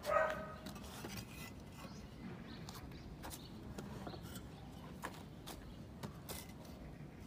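A single short high yip, like a small dog's, right at the start, then faint scattered knocks and clacks as bricks are set down onto a stack.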